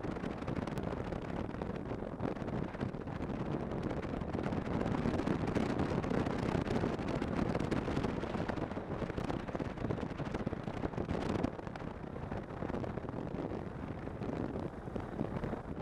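Snowmobile riding at speed, its engine drone mixed with wind buffeting the microphone; it drops a little in level about eleven seconds in.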